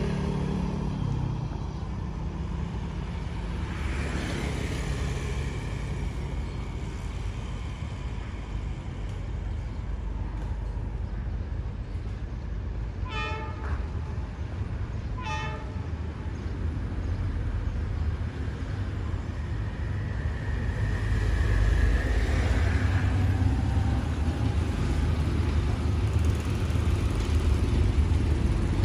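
Diesel-electric locomotive D19E approaching: a steady low engine rumble that grows louder in the second half, over street traffic noise. Two short horn toots about halfway through.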